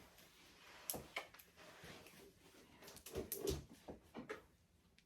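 Hands handling an Apple Watch box and its packaging: scattered light taps and clicks with soft rustling, and a short cluster of knocks and a dull thud a little past the middle.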